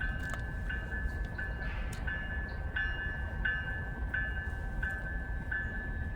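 Railroad grade-crossing warning bell ringing steadily, about three strokes every two seconds, over a low rumble. The crossing signal is activated for an approaching train.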